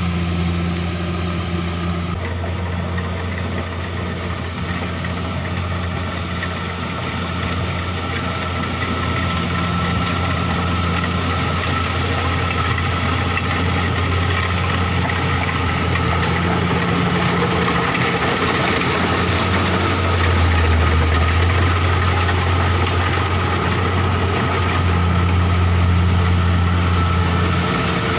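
Engine of rice harvesting machinery running steadily, with a constant low hum under a dense, noisy mechanical clatter. It grows slightly louder about twenty seconds in.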